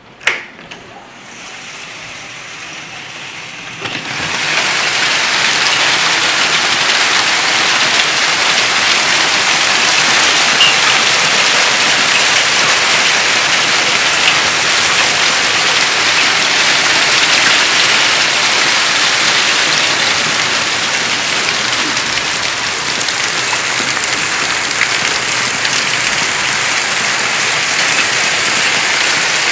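A sharp click at the very start, then heavy rain mixed with hail coming down as a loud, steady hiss that swells in about four seconds in and holds.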